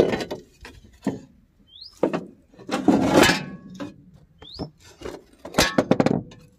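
Metal parts of a thresher being handled and shifted during reassembly: several scraping knocks and rattles, the loudest about three seconds in. A bird gives a short rising chirp twice.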